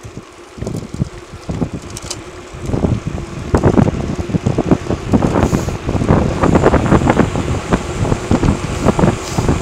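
Wind buffeting the microphone of a camera carried by a cyclist riding fast on an asphalt road, a rough rushing that grows much louder about three seconds in and stays gusty.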